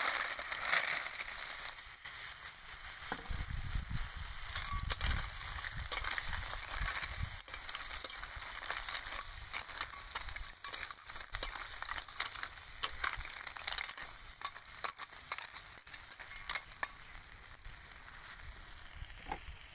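Snails in their shells sizzling in a pan of chili sauce, with the shells clicking and clattering as they are tipped in and stirred with a metal spoon.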